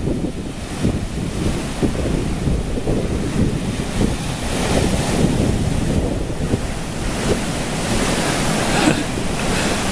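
Rough surf breaking and foaming waves washing up a pebbly beach, with strong wind buffeting the microphone in uneven gusts.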